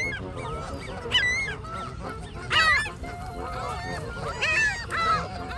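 Canada geese honking, a run of overlapping calls, the loudest about two and a half seconds in, over a steady low rumble.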